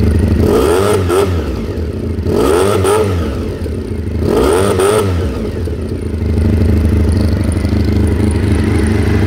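Honda RVF400 (NC35) V4 engine heard through a Faddy Daddy aftermarket muffler. It is revved three times in the first five seconds, each rev rising and falling back, and then settles into a steady idle.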